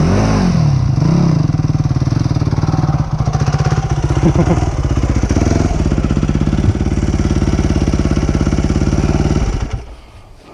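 Yamaha WR250F dirt bike's four-stroke single-cylinder engine idling close by, its pitch swelling up and down in the first second or so. The engine is shut off, cutting out sharply near the end.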